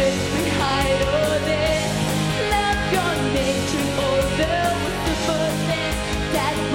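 Pop song with a steady backing track and a girl's voice singing a wavering, sliding melody over it.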